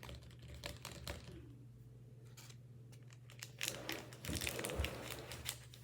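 Small plastic candy-kit packets and a plastic tray being handled: scattered crinkling and light clicks, quieter in the middle and busier again in the last couple of seconds.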